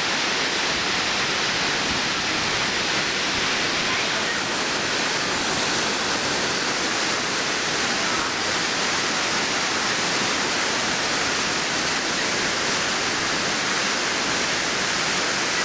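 Tall waterfall pouring down a rock face into its plunge pool: a loud, steady rush of falling water.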